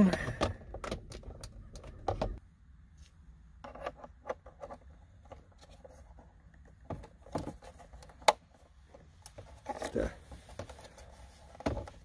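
Plastic center-console trim and its wiring connectors being handled and fitted: scattered light clicks and small rattles, with one sharp click about eight seconds in.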